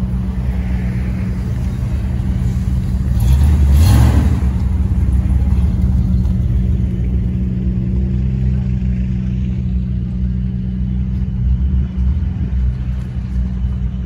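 Car engine idling with a deep, steady exhaust note, swelling louder briefly about four seconds in.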